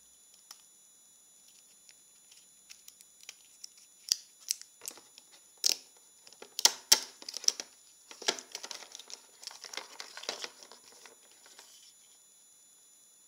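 Handling of packaging as a coiled Apple Lightning cable is lifted out of its cardboard compartment and unwound: crinkling and rustling with sharp clicks and taps, loudest around the middle, then a longer stretch of rustling that stops near the end.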